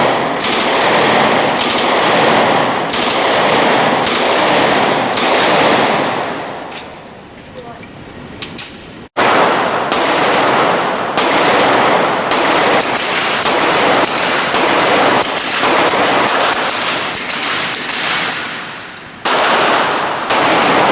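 Fully automatic gunfire in a rapid string of short bursts with brief pauses between them. The firing thins out after about six seconds, breaks off abruptly near nine seconds in, then resumes in more short bursts.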